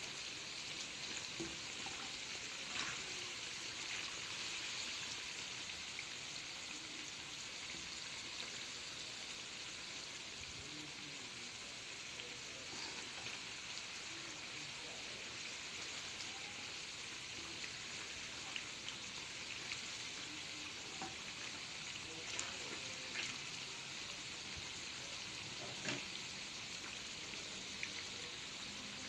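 Banana and sweet-potato pieces deep-frying in a wide pan of hot oil: a steady sizzle with a few faint scattered crackles.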